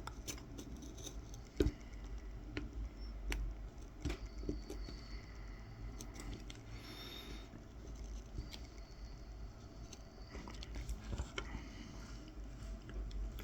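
Faint scratching and light ticking of a Mora 106 knife tip scoring fine lines into a wooden coffee scoop for kolrosing, with one sharper click about one and a half seconds in.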